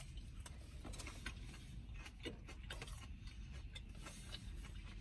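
Faint chewing of a crispy breaded boneless chicken wing: a run of small, irregular clicks and crunches.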